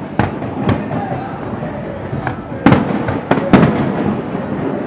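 Fireworks bursting overhead: a string of about six sharp bangs in under four seconds, the loudest near the middle, each trailing off in a rumbling echo.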